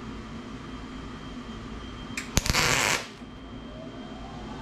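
A single short tack weld on a stainless-steel exhaust tailpipe: a sharp click as the arc strikes, then about half a second of loud hiss from the welding arc that cuts off suddenly, over a steady shop hum.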